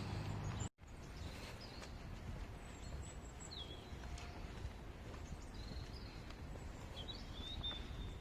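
Faint outdoor ambience with a few small birds chirping over a low background rumble. Less than a second in, a steady low hum cuts off abruptly at an edit.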